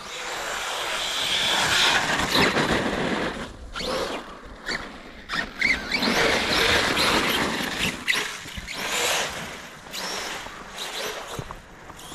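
Arrma Kraton electric RC monster truck driving in soft, wet snow: motor whine and tires churning through the snow, rising and falling in bursts.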